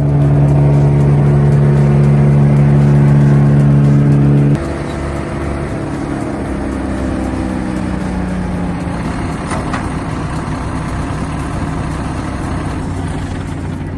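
A machine's engine running at a steady high speed. About four and a half seconds in it drops suddenly in loudness, and its tone then slowly winds down and fades.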